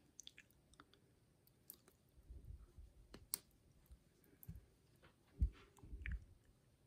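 Faint clicks and handling noise of a watch strap being unclipped from and fitted to a Huawei Watch GT 2 case, with one sharp click a little past three seconds in and a couple of soft low thumps about five and a half and six seconds in.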